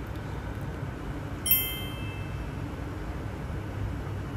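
A single bright clink about one and a half seconds in, a cooking utensil striking cookware and ringing briefly, over steady low background noise.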